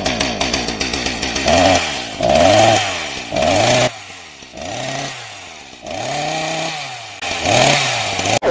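Chainsaw engine running, a fast rattling idle at first, then revved over and over in short bursts, each rev rising and falling in pitch, about one a second.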